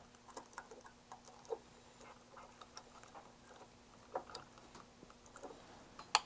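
Faint small clicks and taps of spring-loaded hook clips being fastened onto a transistor's legs, then a sharper double click near the end as the component tester's push button is pressed.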